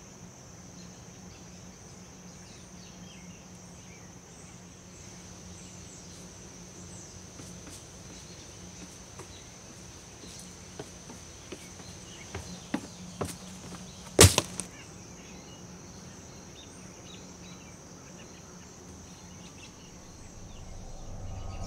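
Quiet woodland ambience with a steady high hiss and a low hum underneath. Footsteps on a wooden boardwalk and stairs come through as scattered soft knocks in the middle, and about two-thirds through a single sharp wooden crack is the loudest sound.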